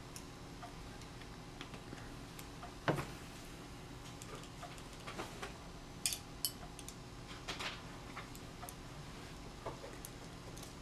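Faint scattered clicks and ticks of a BT TM7 paintball marker's plastic and metal parts being handled as an Allen key loosens a screw at its bottom and the parts are worked loose, with one sharper click about three seconds in.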